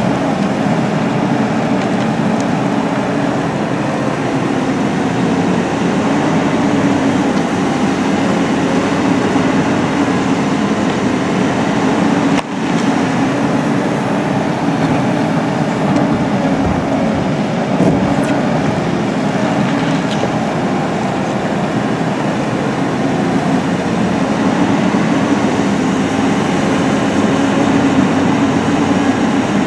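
Cat 320CL tracked excavator's diesel engine and hydraulics running steadily under load as it digs and swings a full bucket to a dump truck. The sound drops out for an instant about twelve seconds in.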